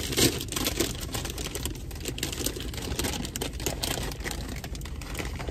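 Crinkly plastic popcorn bag being handled and pulled open: irregular crackling rustles.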